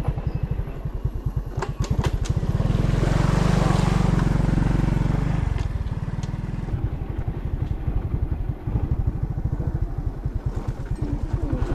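Small motorcycle engine running as the bike rides along a rough forest track, its firing pulses steady throughout and getting louder for about three seconds in the middle.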